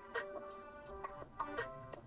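Background music: a melody of short, sharply struck notes.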